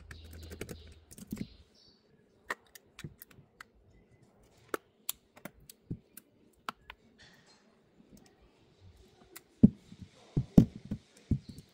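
Scattered sharp clicks and taps of an iPhone 11 being handled and pressed together by hand during reassembly, with a cluster of louder knocks near the end.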